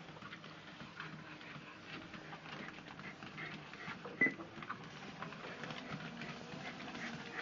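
Treadmill motor and belt running with the light patter of two Shetland sheepdogs' paws on the moving belt, and one sharp click about four seconds in.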